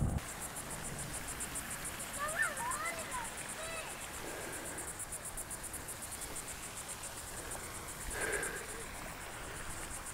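A high-pitched insect call, pulsing rapidly and evenly, with a few short chirps about two to four seconds in.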